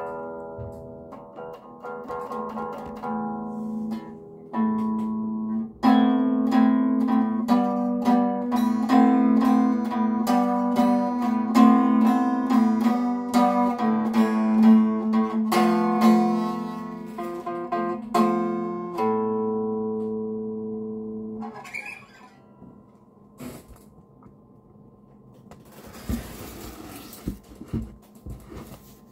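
Acoustic guitar playing a sequence of chords for about twenty seconds, the last chord ringing out and fading. After it come a few clicks and a brief rustle of handling near the end.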